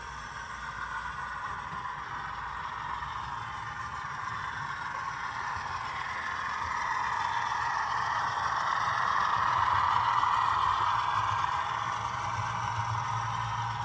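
HO scale model freight train rolling across a model truss bridge, its wheels rattling steadily on the track over a low motor hum. It grows louder as the train approaches, is loudest about ten seconds in, then begins to fade as it passes.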